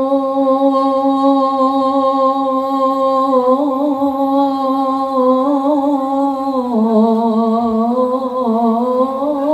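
A man's solo suluk, a free-rhythm Arabic vocal prelude, sung into a microphone: one long held note, then about seven seconds in the voice drops lower and wavers through melismatic ornaments. No drums or other instruments can be heard under it.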